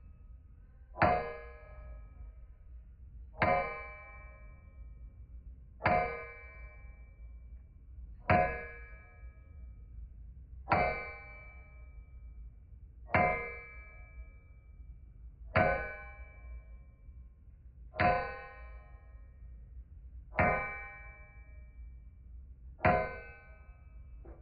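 A hammer striking metal on an anvil with single, evenly paced blows about every two and a half seconds. Each blow rings out briefly.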